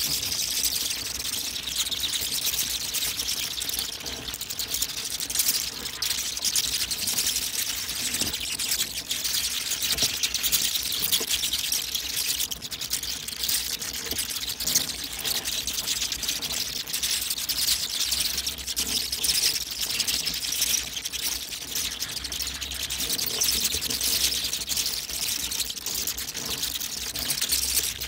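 A colony of bats screeching and chittering all at once, many overlapping high-pitched calls merging into a dense, unbroken crackle.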